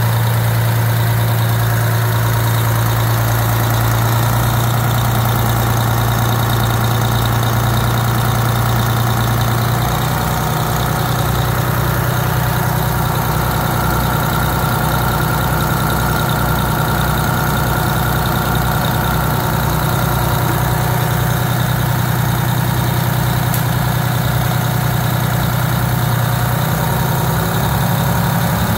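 1989 Detroit Diesel 6V92TA, a two-stroke turbocharged V6 diesel, idling steadily.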